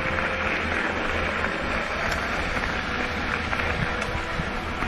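Steady rush of ride noise from a mountain bike climbing a dirt road, its tyres rolling on the loose surface.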